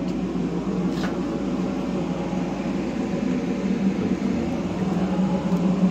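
Arctic Cat Mountain Cat 800 snowmobile's two-stroke twin-cylinder engine running steadily at idle.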